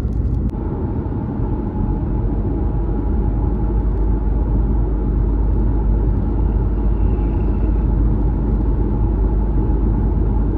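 Tyre road noise from a 210-series Toyota Crown Athlete on the move: a steady low rumble, with a faint steady hum that comes in about half a second in.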